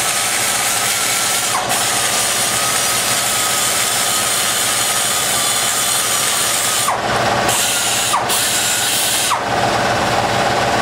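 A die grinder with a long-shank burr cutting into the exhaust port of a ProComp 190cc small-block Chevy cylinder head. It runs at a steady high whine with hiss, and the pitch dips briefly about four times as the burr bites into the port wall.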